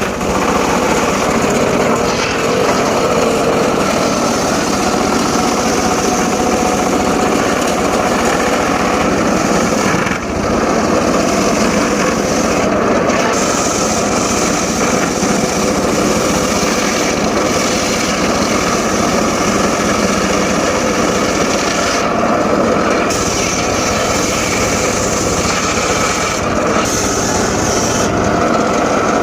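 Home-built, engine-driven circular saw running steadily while it cuts teak logs, with short changes in its high-pitched tone now and then.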